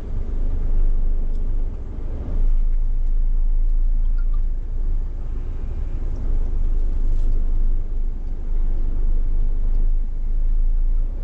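Scania S500 truck's diesel engine running, a steady low rumble.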